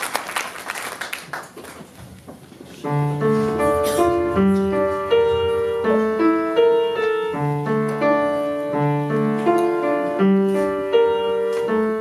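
Applause dying away, then about three seconds in an acoustic upright piano begins playing a song intro: even, sustained chords over a low bass note.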